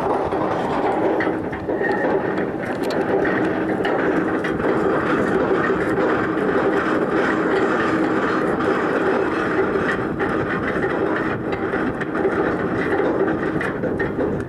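Cruise ship's anchor chain running out over the windlass as the anchor is dropped: a steady, dense metallic rattle of chain links.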